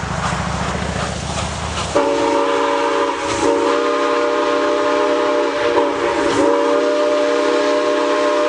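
An approaching steam locomotive gives a low rhythmic rumble. About two seconds in, its chime whistle sounds a long multi-note chord, with two short breaks, held on to the end.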